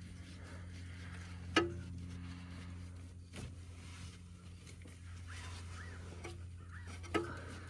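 Two sharp metallic clicks, each with a brief ring, about five and a half seconds apart, as spark plugs are turned in by hand in the engine bay, over a steady low hum.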